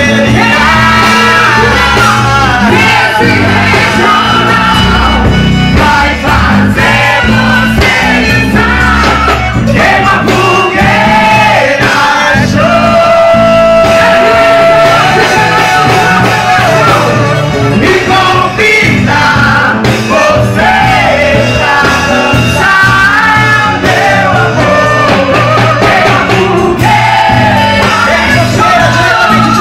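Loud live music with a singer and a steady beat, heavily amplified and distorted.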